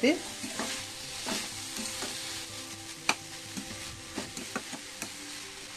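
Chopped banana flower stir-frying with spices in a stainless steel pan: a steady sizzle, with a spatula scraping and tapping against the pan as it is stirred, one sharper knock about three seconds in.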